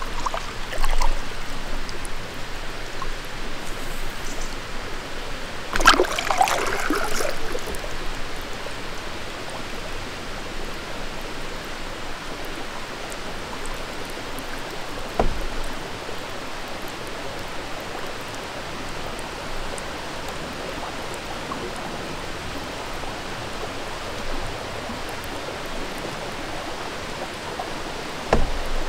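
Steady trickling, rushing water, with a canoe paddle splashing through the water about six seconds in. Two soft low knocks come later, one midway and one near the end.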